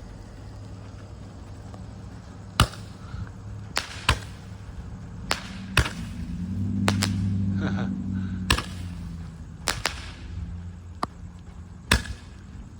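Roman candle with crackling red and green stars firing, a series of sharp pops at uneven gaps of about a second, over a low steady rumble that swells about six seconds in.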